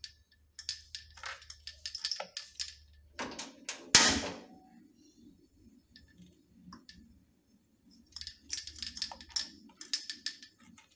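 A gas stove burner is lit with a couple of sharp clicks, the loudest about four seconds in, and then the lit burner gives a steady low rushing hiss. Small clicks and rattles of handling come before the lighting and again near the end.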